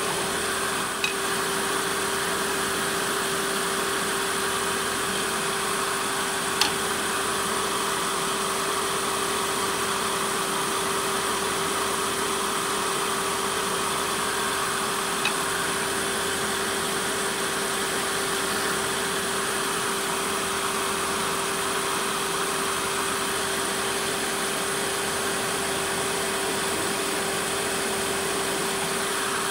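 Wood lathe running steadily with a constant hum. Three short clicks, the sharpest about six and a half seconds in.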